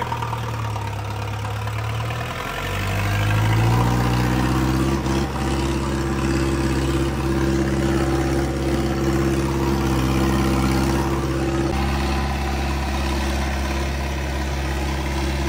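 Diesel tractor engine running low, then revving up about two and a half seconds in and holding a steady high note while it works to pull a stuck vehicle out of mud; the revs ease slightly near the end.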